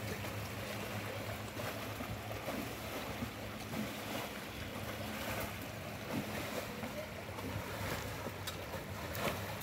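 Shallow, fast-flowing river water rushing steadily around a vehicle standing in the current, with a few small splashes near the end.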